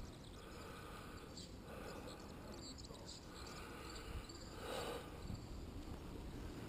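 Faint outdoor ambience with a steady, high insect-like trill over a low rumble.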